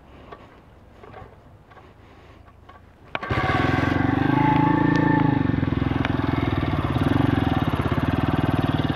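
Faint handling noises, then about three seconds in a click and the YX 160cc single-cylinder four-stroke pit bike engine comes in abruptly, running steadily with a rapid firing pulse as the bike rides along.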